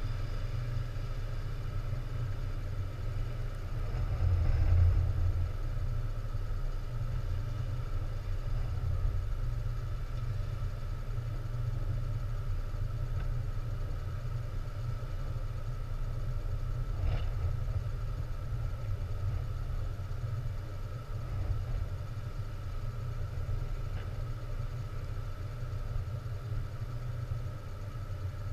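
Steady low engine drone, swelling briefly about four seconds in, with a short sharp sound around the middle.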